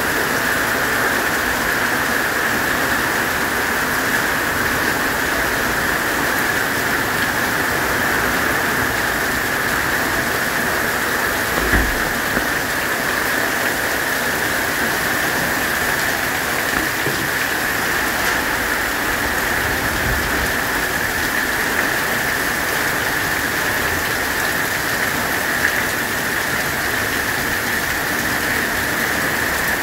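Heavy monsoon rain pouring steadily. One short thump comes about twelve seconds in.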